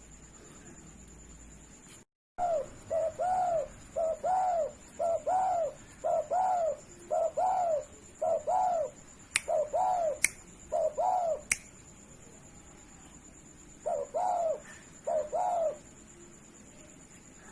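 Spotted dove (derkuku) cooing: a run of repeated arching coos from about two seconds in, a pause, then two more coos near the end. Three sharp clicks fall in the middle of the run, alongside a faint steady high whine throughout.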